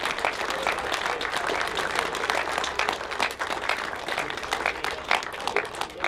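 Crowd applauding: a dense, steady patter of hand claps.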